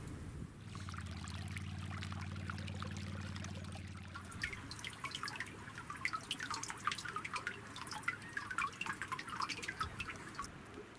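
Meltwater dripping and trickling off a wall of melting river ice into a shallow pool: many quick, irregular drops starting about four seconds in. A low steady hum runs for the first few seconds.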